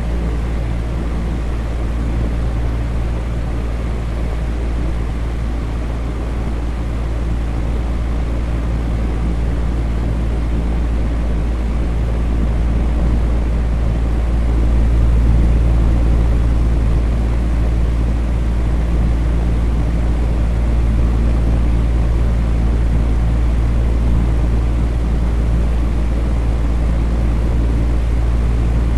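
Electric fan running steadily: a low, even hum under a soft rush of air.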